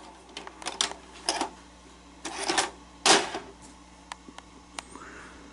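Plastic and mechanical clicks and clunks as a cassette is stopped, taken out and swapped in a Sony SL-S600 Betamax deck. The loudest clunk comes about three seconds in, and a few light ticks follow.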